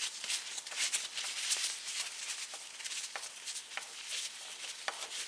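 Scattered light clicks and rustling of hands handling tools and parts at a bicycle crank.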